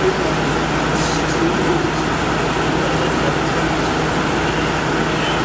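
Window air conditioner running with its fan on high and its compressor on: a steady blowing noise with a constant low hum.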